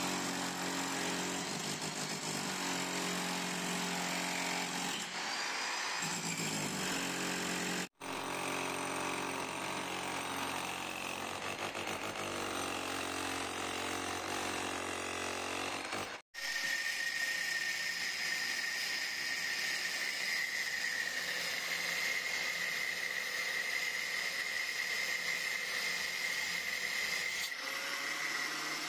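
Corded electric demolition hammer breaking up a concrete floor slab, running continuously. The sound breaks off briefly twice. A little past halfway the hammering gives way to a steady high whine, an angle grinder running against concrete and steel rebar.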